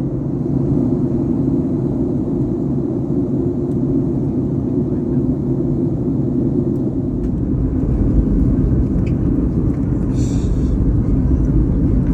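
Steady low rumble of a Boeing 737 MAX 8's jet engines and airflow inside the passenger cabin, growing heavier in the deep bass about seven seconds in. A brief hiss comes about ten seconds in.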